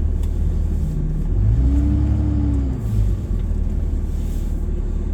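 Vehicle engine running with a steady low rumble while driving, revving up briefly and easing back off about two seconds in.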